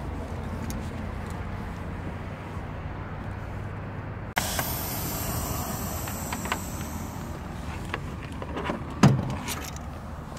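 Steady low rumble of an idling truck engine. About four seconds in a hiss starts suddenly and runs for some three seconds, and about nine seconds in there is a loud thump.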